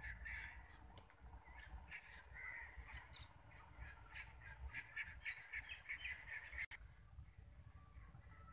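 Crows cawing over and over in quick succession, with a thin, steady high whine behind them. Both cut off abruptly about three-quarters of the way through.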